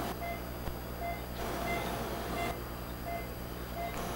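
Patient monitor beeping: short electronic beeps repeating a little faster than once a second, in a heartbeat-like rhythm, over the steady hum of room equipment.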